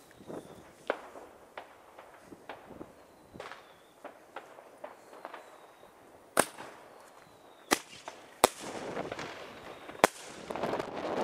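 Fireworks going off: scattered sharp bangs of firecrackers and rocket bursts, some faint and distant, the loudest four in the second half. A stretch of crackling noise follows near the end.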